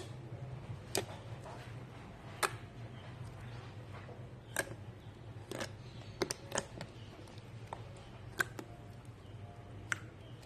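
Slime being handled, giving sharp clicks and pops at irregular intervals, about ten in all, with a few bunched together midway. A low steady hum runs beneath.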